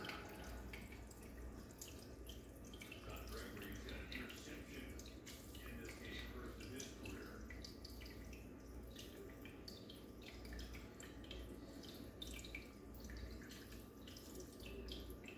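Aquarium water circulating: a faint steady trickle with many scattered drips and small splashes over a low steady hum.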